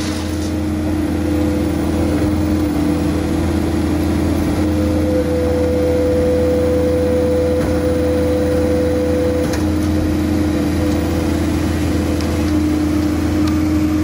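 Komatsu SK820 skid steer's diesel engine running steadily under load, with a steady hydraulic whine from the rotating screening bucket's drum drive. A second, higher whine joins for a few seconds in the middle.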